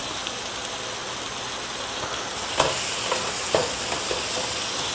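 Onion and tomato masala base frying in oil in a pan over raised heat: steady sizzling, with two short clicks of the stirring utensil a little past halfway. The tomato is cooking down into the onion base.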